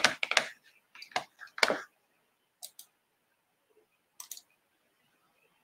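A cluster of short clicks and taps in the first two seconds, then two faint pairs of clicks a little later.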